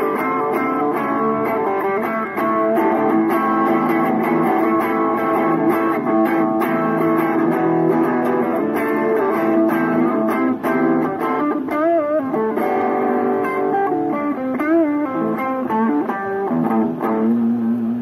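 Guitar playing a melody with held notes, a few of them wavering in pitch a little past the middle; the music stops right at the end.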